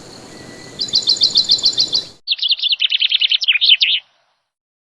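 Songbirds singing: quick runs of repeated high chirps, then a faster, lower trill. The birdsong cuts off abruptly about four seconds in.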